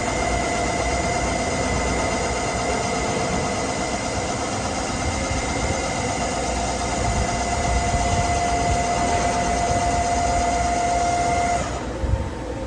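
Duplex milling machine running, a steady high whine with several tones over a low machine rumble, typical of the spindles and cutters milling a steel plate. The whine stops abruptly about a second before the end, leaving the rumble and a short knock.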